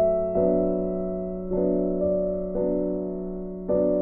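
Background instrumental music on a piano-like keyboard: sustained chords, a new one struck about once a second.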